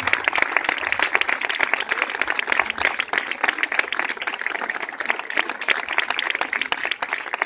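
Crowd applauding: many hands clapping in a steady, dense patter.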